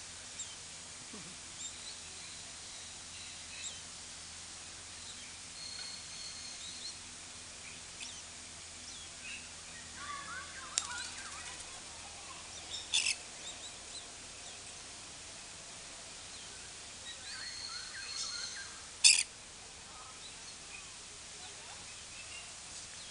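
Birds calling in a walk-through aviary: thin held whistles and scattered chirps, with two short, shrill calls, one just past the middle and a louder one near the end.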